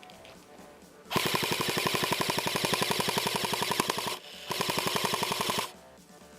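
Airsoft electric rifle (AEG) firing on full auto: a rapid, even rattle of shots in a long burst of about three seconds, then a shorter burst of about a second after a brief pause.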